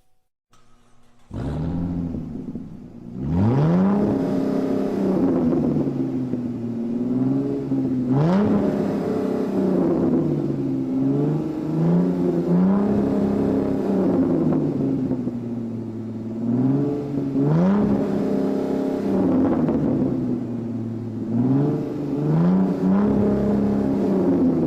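Car engine revving over and over: its pitch climbs sharply, holds briefly, then drops back, again and again.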